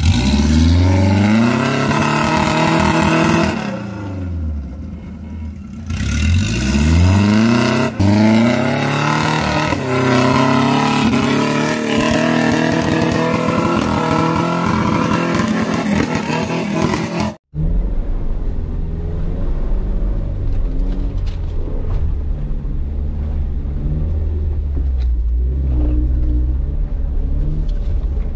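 An off-road 4x4's engine revving hard, climbing steeply in pitch twice in the first several seconds, then held at high revs. After an abrupt cut about two-thirds of the way in, an engine runs steadily at low revs.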